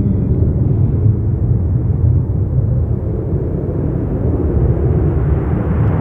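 Steady rumbling roar of two twin-engine jet airliners landing on parallel runways and rolling out, mixed with wind buffeting the microphone.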